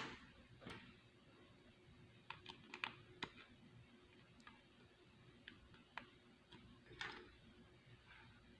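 Faint, scattered clicks of hard plastic model-kit parts being handled and fitted together, about ten small ticks spread irregularly over several seconds.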